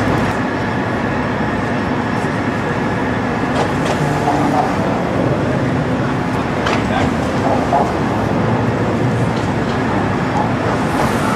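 A steady, dense mechanical rumble with a low hum, broken by a few faint clicks.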